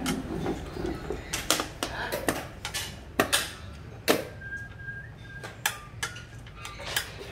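Sharp clacks of xiangqi pieces being set down and slid on a wooden board, mixed with presses of a chess clock's buttons: about a dozen hard clicks at uneven intervals.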